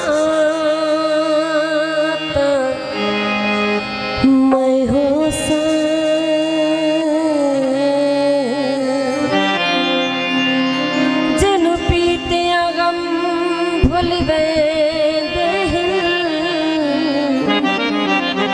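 South Asian folk music: a wavering melody line with vibrato over sustained drone notes, at a steady loud level.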